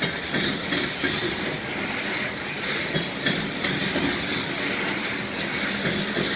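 Loaded coal hopper cars rolling past: the steady noise of steel wheels on the rails, with short knocks now and then.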